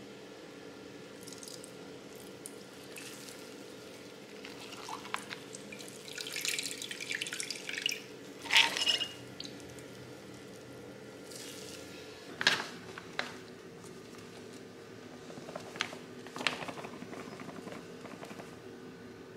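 Green vegetable juice poured into a wooden bowl, splashing and dripping for a few seconds, then a knock and dry flour pouring in near the end, over a faint steady hum.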